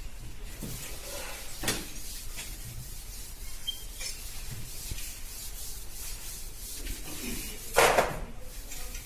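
Blackboard duster rubbing chalk off a chalkboard in repeated wiping strokes, with one much louder stroke near the end.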